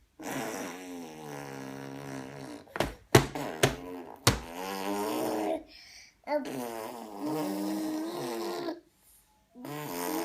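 A baby making long, buzzy vocal sounds in several drawn-out stretches of one to two seconds each. A few sharp knocks come about three to four seconds in.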